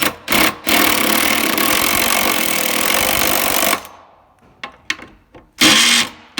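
Impact driver with a 13 mm socket hammering out a long bolt: a few short trigger bursts, then about three seconds of continuous hammering, and another short burst near the end.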